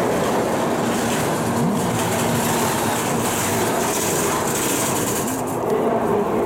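N700 series Shinkansen train moving slowly alongside the platform: a steady rolling rumble with a low electric hum and a couple of brief whines.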